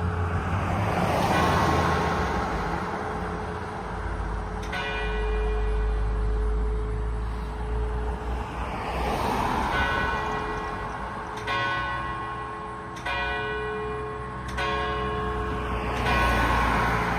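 Church bells ringing at noon, their long ringing tones overlapping, with fresh strokes coming about every second and a half in the second half. A broad rushing noise with a low rumble swells under the bells twice.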